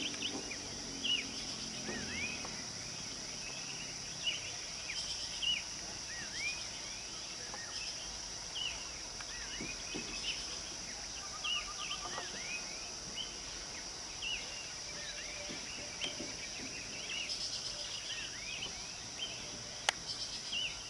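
Outdoor hillside ambience: a steady high insect drone with many short, arching bird chirps repeating over it, and one sharp click near the end.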